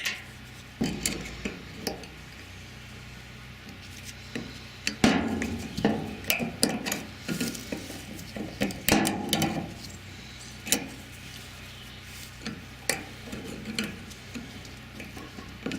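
Hand tools scraping, picking and clinking against a CUCV 6.2 diesel's fuel filter housing as an old part is broken up and pried out, in irregular taps and scrapes. A faint steady low hum lies underneath.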